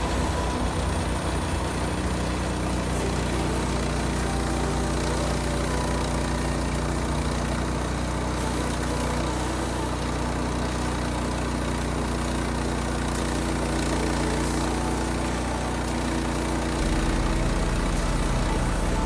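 Engine running at a steady speed, its note shifting and growing slightly louder near the end.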